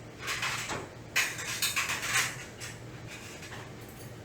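Wooden building blocks clacking and scraping as they are picked up and set in place, a few short bursts in the first couple of seconds, then quieter handling.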